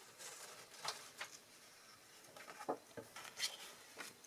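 Sheets of cardstock being handled and set down on a craft mat: a few faint, light taps and paper rustles scattered through the moment.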